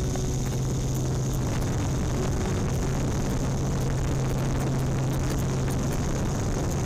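Yuneec Typhoon Q500+ quadcopter's motors and propellers running with a steady low hum and a constant high hiss.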